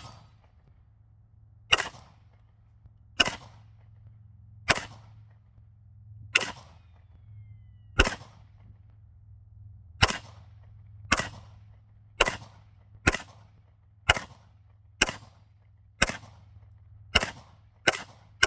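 CZ Scorpion 9mm firing single shots, about fourteen in all. The shots come roughly every one and a half seconds at first, then quicken to about one a second.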